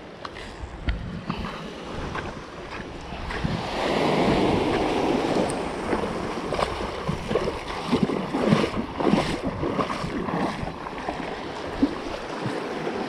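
Small sea waves washing and breaking over shoreline rocks at the water's edge, the surf growing louder about four seconds in, with wind on the microphone and scattered sharp clicks.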